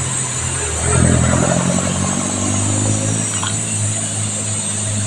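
A motor vehicle's engine running with a steady low hum. It swells louder about a second in and eases back after about three seconds.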